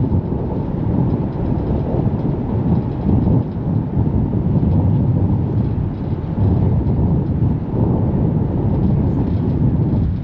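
Low, unsteady rumble of wind buffeting the microphone on the open deck of a moving harbour ferry, mixed with the ferry's engine and water noise.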